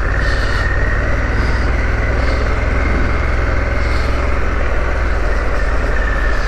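Harley-Davidson Pan America's V-twin engine running steadily while the motorcycle is ridden along a track, with a constant rush of wind and road noise.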